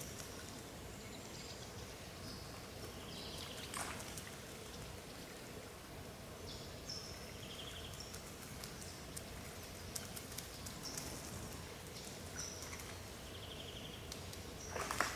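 Small parrots bathing in a shallow pool: water splashing and dripping, with short high chirps now and then. The loudest splash comes right at the end.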